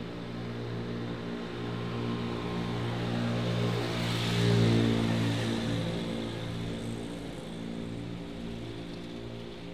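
A motor scooter passing close by, its engine growing louder to a peak about four and a half seconds in and then fading, over a steady low hum.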